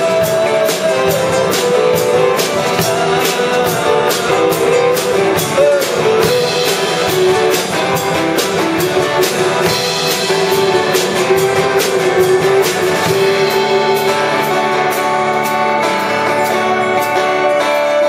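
Live band playing an instrumental break: a guitar melody over drums keeping a steady beat, with keyboard.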